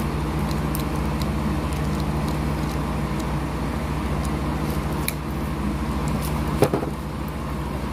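A steady low hum runs throughout, with a few faint clicks and one sharper knock about six and a half seconds in.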